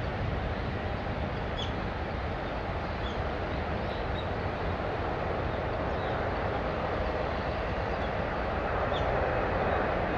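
Steady rumble of jet airliner engines, growing a little louder near the end.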